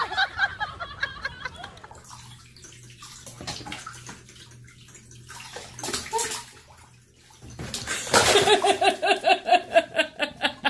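Water running and splashing in a bathtub, with a rapid string of short, repeated vocal sounds in the last few seconds.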